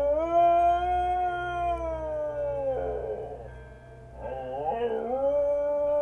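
A dog howling along to church bells: one long howl held about three seconds and trailing off, then a second that starts about four seconds in with a wavering rise and settles into a steady held note.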